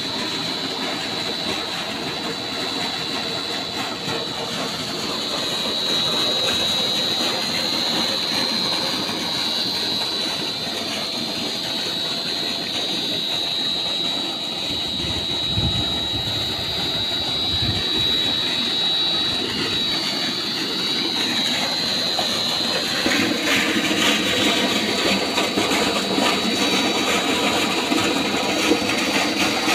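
Solar-powered electric centrifugal tubewell pump running steadily, with water gushing from its discharge pipe into a field channel and a steady high whine running through the rush. A couple of low bumps come around the middle, and the rush of water grows louder about two-thirds of the way through.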